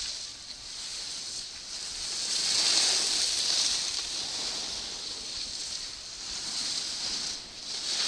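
Skis scraping across packed snow through turns: a steady hiss that swells and fades with each turn, loudest about three seconds in.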